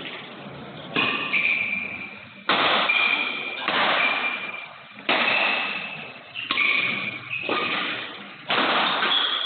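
Badminton rackets striking a shuttlecock in a fast rally, about seven sharp hits a second or so apart, each echoing off the hall, with short high shoe squeaks on the court floor between hits.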